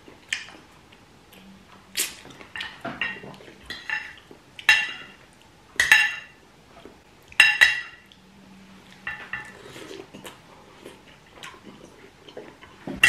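Metal spoon and fork clinking against a plate and bowl during a meal: a dozen or so separate sharp clinks at irregular intervals, with a few louder ones in the middle.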